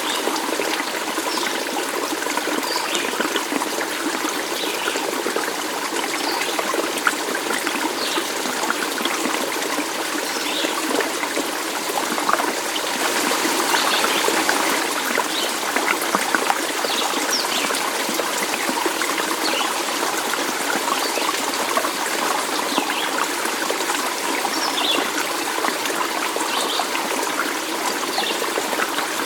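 Water running and trickling steadily, a small stream burbling, with many small splashes and drips over a constant rush.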